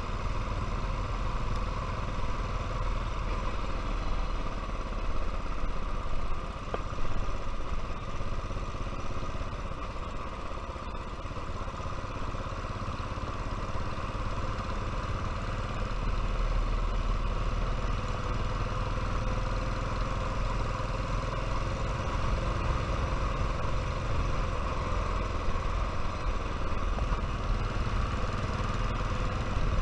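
Royal Enfield motorcycle engine running steadily, with a deep low rumble.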